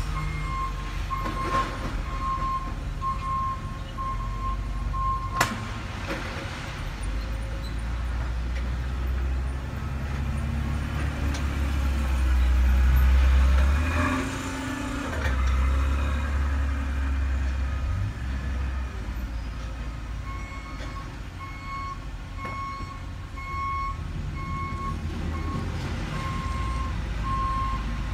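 Backup alarm beeping steadily, a little over once a second, stopping about five seconds in and starting again near the end. Under it a heavy engine rumbles, swelling louder for several seconds in the middle, with one sharp click about five seconds in.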